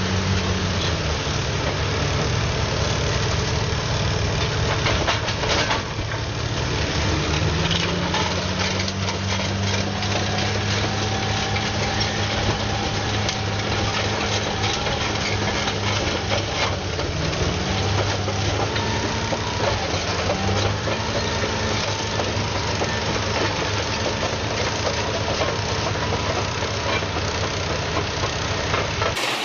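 Heavy vehicle's engine running steadily, its pitch rising and falling a few times as the engine speed changes, with mechanical clatter and noise over it.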